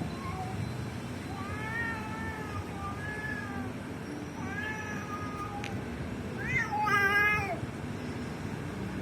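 Cats yowling in a fight: a series of drawn-out, wavering howls, the last and loudest about seven seconds in, over a steady low background noise.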